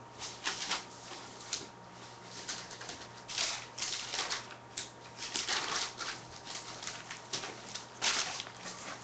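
Irregular soft rustling and scuffing noises close to the phone's microphone, in short bursts every second or so, over a faint steady hum.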